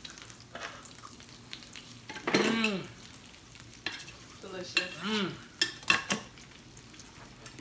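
Meat sizzling faintly on a round tabletop barbecue grill, with a few sharp clicks of metal tongs against the grill and plate about four to six seconds in.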